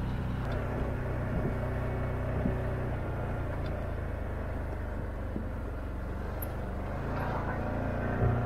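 Can-Am Maverick Sport 1000 side-by-side's Rotax V-twin engine running steadily while driving a dirt trail, with a few short knocks and rattles; it gets a little louder near the end.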